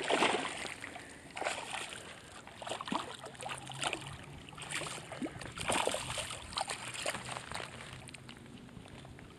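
A hooked largemouth bass thrashing at the surface of the water as it is fought to the bank: a run of irregular splashes and sloshes, the biggest right at the start, then smaller ones that fade toward the end.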